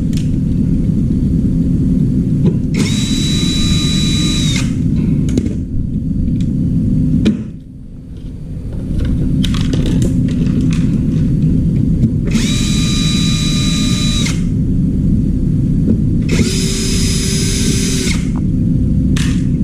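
Power tool motor whining in three separate bursts of about two seconds each, over a steady low rumble.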